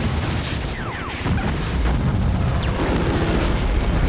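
Film battle sound effects: rapid machine-gun fire and booms over a heavy low rumble, as fighter planes open fire on their targets.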